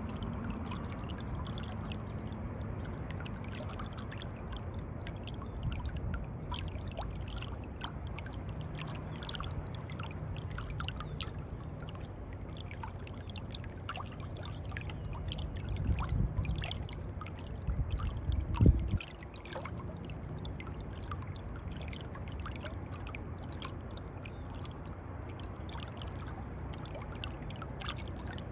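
Swimming-pool water lapping and trickling against itself, with many small splashy ticks over a steady low rumble. About two-thirds of the way through come two louder, dull low surges, the second ending in a sharp bump.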